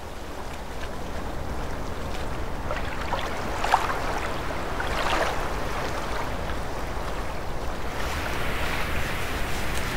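Flowing river water, a steady rush with scattered small splashes, swelling in over the first couple of seconds.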